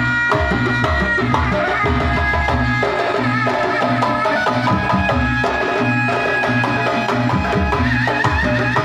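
Live pencak silat accompaniment music: hand drums in a steady repeating pattern under a wavering, reedy high melody, played loud through a sound system.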